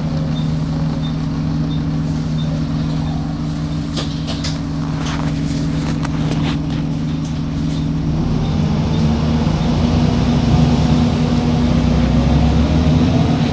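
A motor vehicle running steadily, with a few brief high squeals and knocks. About two-thirds of the way through, the engine note rises as it picks up speed.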